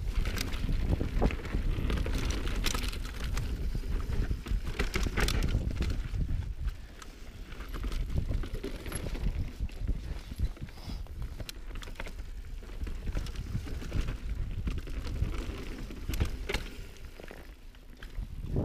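Mountain bike ridden over rough singletrack: tyres rolling and knocking over rocks and roots, with frequent sharp clatters and rattles from the bike, under a steady low rumble of wind on the microphone.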